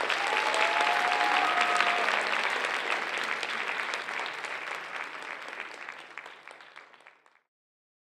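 Theatre audience applauding at the end of a ballet solo, a dense patter of clapping that fades away gradually and is cut off about seven seconds in.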